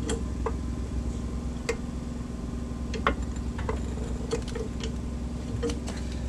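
Irregular light clicks and ticks over a steady low hum as the car is let down on its lift, settling the rear suspension so the shock's lower mount lines up with its bolt.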